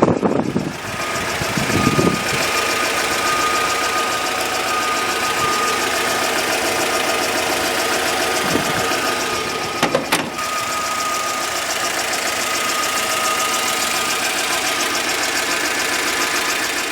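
GAZelle's UMZ-4216 2.9-litre four-cylinder petrol engine idling steadily, with a steady high whine over it.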